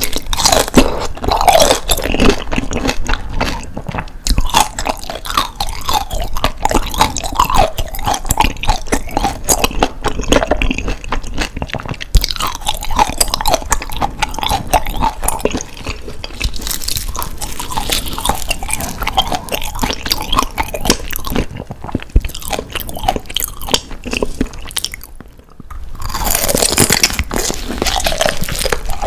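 Close-miked chewing of grilled daechang (beef large intestine), crunchy and wet. It pauses briefly near the end, then a fresh crunchy bite follows.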